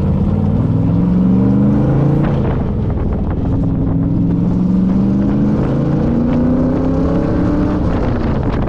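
Shelby Cobra replica's 350 V8 accelerating hard under load. The engine pitch climbs, drops at an upshift about two seconds in, climbs again, drops at another shift around five to six seconds in, then climbs once more before easing off near the end.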